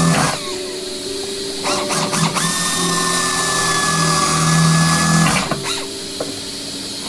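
Pneumatic drill whining steadily as it bores a hole through aircraft sheet metal, then stopping about five seconds in.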